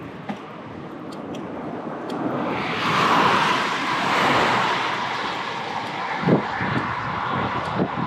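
A motor vehicle passing on the road: a rush of tyre and engine noise swells from about a second in, peaks around three seconds in, and slowly fades. There are two light knocks near the end.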